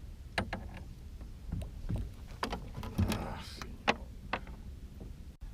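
Scattered sharp knocks and clatters in a small fishing boat, about seven in all, with a brief rustle a little after three seconds in, over a steady low rumble.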